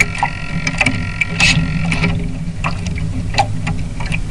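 Water splashing and slapping against the hulls of a Mini40 RC trimaran under sail, picked up by a camera mounted on the boat, over a steady low hum. The splashes come irregularly, with a stronger one about one and a half seconds in.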